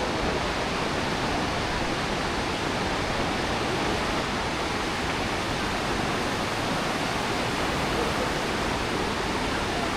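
The Aare River rushing through a narrow rock gorge: a steady, even roar of fast water.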